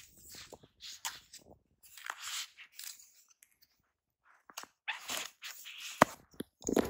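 Intermittent rustling, scraping and clicking of camera gear and bag being handled, with a sharp click about six seconds in.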